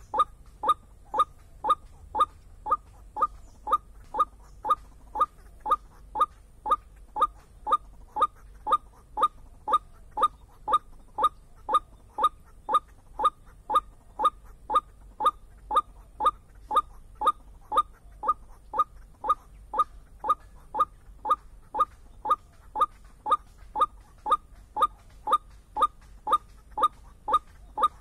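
White-breasted waterhen calling: a long, very regular series of short, clipped 'ruak' notes, about two a second.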